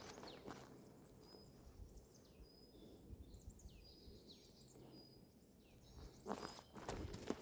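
Faint high chirps and short falling calls of small birds. Footsteps on the forest floor start about six seconds in.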